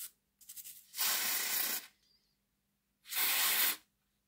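Short scrubbing with a small brush, then two bursts of aerosol contact-cleaner spray ("scoosh"), each just under a second, about two seconds apart.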